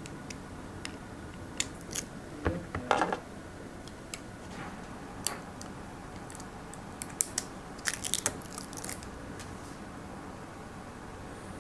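Hands working the stripped end of a DC power cable, pulling out its inner plastic filler and string: scattered small clicks and crunches, with a cluster about two and a half to three seconds in and another around eight seconds.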